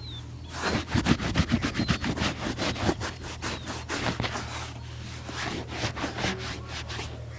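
Quick, irregular brushing strokes on a shoe during a shoe shine, densest in the first few seconds, over a steady low hum.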